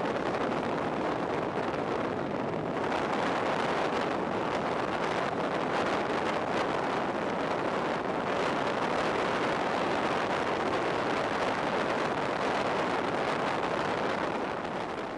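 Steady rush of wind over the microphone from a car driving at speed, with the camera held out by the side window. It fades out near the end.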